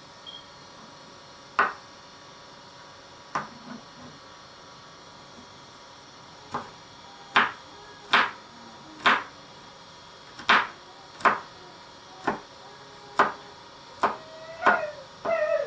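Chef's knife chopping garlic cloves on a wooden cutting board: a few separate knocks at first, then sharp knocks about once a second. Near the end a short wavering pitched sound comes in over the last chops.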